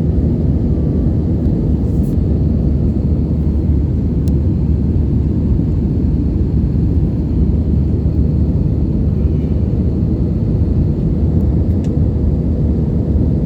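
Steady low rumble of engine and airflow noise heard inside an airliner cabin in flight.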